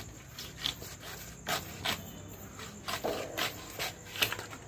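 Knife scraping and cutting through rohu fish on a tarp: a string of short, irregular scrapes, about a dozen in all. Crickets chirr steadily behind them.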